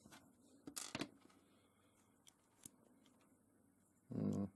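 Faint clicks and a brief rustling scrape of K'Nex plastic parts being handled and fitted together, then a short, low, wordless voice sound near the end.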